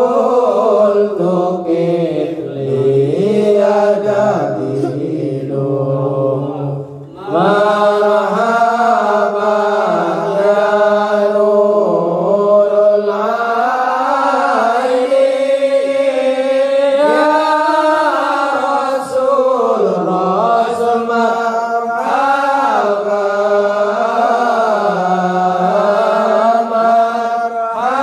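Men chanting Serakalan, a standing sholawat sung in Arabic in praise of the Prophet Muhammad, with no accompaniment. A lead voice on a microphone carries long, wavering melodic lines and the group sings along. The singing pauses briefly for breath about seven seconds in.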